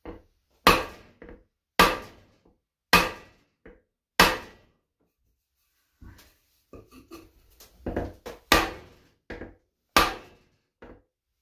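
Heavy wooden blows from a table leg thumped down onto the rust-seized piston of a Kohler CH18 V-twin, to break it free in the bore and set the rings. Four hard blows come about a second apart, then after a pause a run of lighter knocks and several more hard blows.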